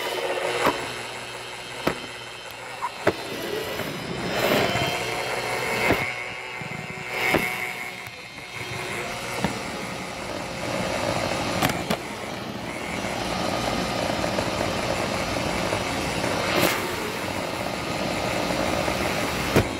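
Roomba robot vacuum running, heard from on top of the machine: a steady whir of its motor and brushes with several sharp knocks spread through the stretch as it bumps into things.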